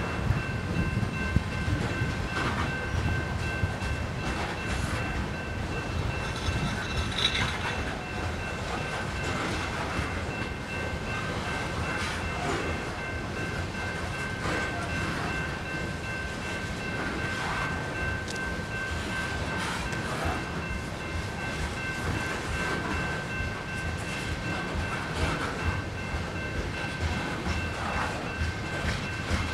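Coal hopper cars of a freight train rolling through a grade crossing: a heavy steady rumble with irregular wheel clacks and knocks over the crossing and rail joints. A GS Type 2 grade-crossing bell rings steadily over it.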